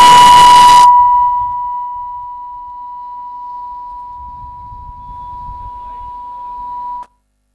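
A steady high-pitched electronic tone, at first under a loud burst of hiss that stops about a second in, then carrying on more quietly until it cuts off abruptly near the end: a fault in the audio track.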